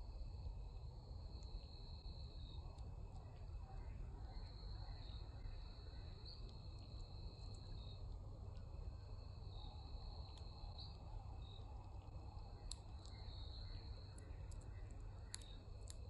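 A high, even animal trill repeated in stretches of one to three seconds with short gaps, over a steady low outdoor rumble. Scattered sharp clicks come in, more often near the end.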